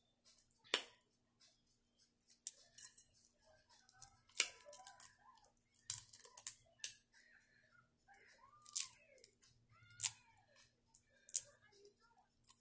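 Cooked shell-on shrimp being peeled by hand: about ten sharp cracks and snaps of the shell at irregular intervals.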